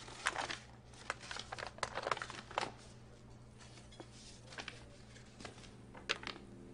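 Quiet indoor room tone from a film scene: a low steady hum with scattered faint rustles and light clicks.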